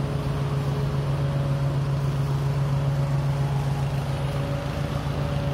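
An engine running at a steady speed: a constant low drone with fainter steady higher tones above it.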